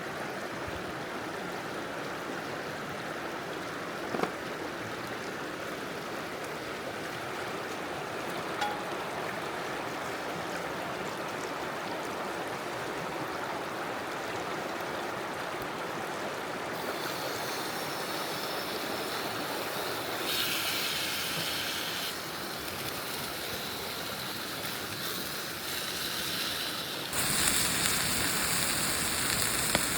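Steady rushing of a river flowing past. In the last few seconds a louder, brighter hiss takes over.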